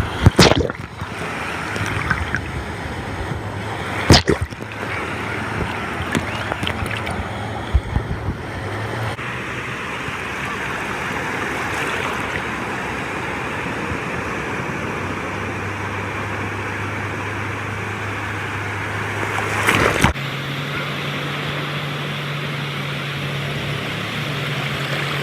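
Ocean surf washing steadily onto a beach, with a few sharp knocks of the recording phone being handled.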